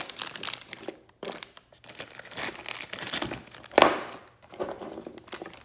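Plastic zip-top parts bag crinkling and rustling as it is handled and opened, with one louder crackle a little under four seconds in.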